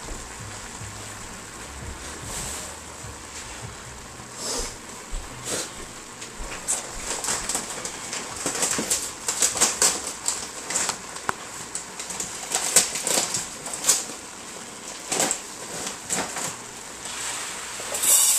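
Ground beef and spinach frying in a skillet: a faint steady hiss with irregular crackles and pops, thickest in the middle, and a louder burst near the end.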